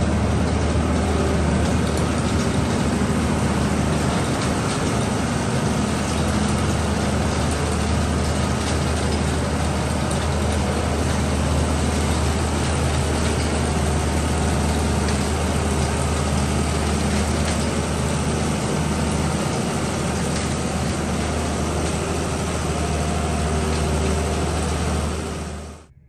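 Heavy engine of the barn-scraping machine running steadily with a deep, even hum. It cuts off abruptly near the end.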